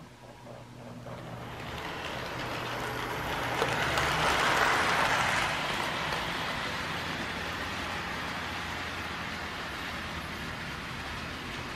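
Lionel O-gauge Trackmobile model's electric motor and the wheels of its two-car train running on three-rail track, a model without any sound system. The hum and rattle build as it pulls away, are loudest about four to five seconds in as it passes close, then go on steadily.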